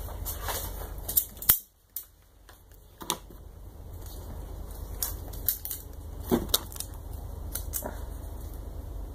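Irregular sharp clicks and crinkles of small parts and packaging being handled on a workbench, over a low steady hum that cuts out about a second and a half in and comes back a couple of seconds later.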